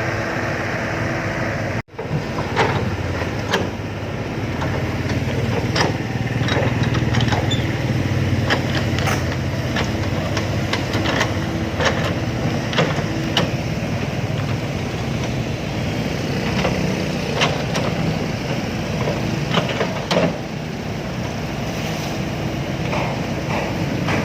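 Diesel engine of a Komatsu excavator running steadily under load, with frequent short clanks and knocks of working metal, rock and soil throughout. The sound cuts out completely for a moment about two seconds in.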